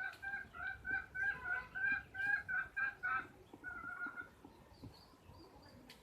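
A bird calling in a fast run of short, pitched calls, about four a second, that stops a little after three seconds. One longer call follows, then faint high chirps.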